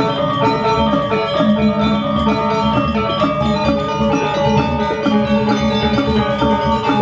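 Background music with a steady beat: bright pitched notes over percussion.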